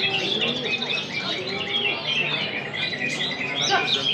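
Several caged greater green leafbirds (cucak ijo) singing at once: a dense, continuous tangle of quick high chirps and warbled phrases overlapping one another.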